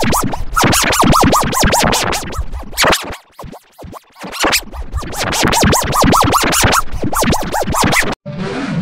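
Electronically mangled audio effect: a rapid stutter of short sweeping chirps, about seven a second, like record scratching. It thins to a few isolated blips about three seconds in, resumes, then cuts off suddenly near the end, where a different steady, noisy sound takes over.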